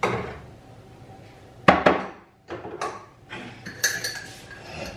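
Kitchen utensils and dishes clattering as spice is spooned out: one sharp knock about halfway through, then a few light clicks and a short ringing clink of metal or glass.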